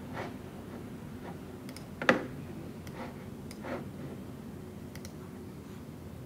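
Quiet office room tone: a low steady hum with a few scattered clicks at a computer desk, the loudest about two seconds in.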